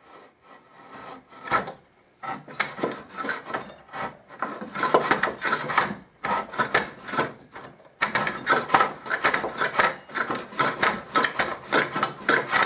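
Hand-made wooden dado plane cutting cross grain in spalted maple: quick, short, repeated rasping strokes of the iron shearing the wood fibres. There are three runs of strokes, starting about two seconds in, with brief pauses about six and eight seconds in.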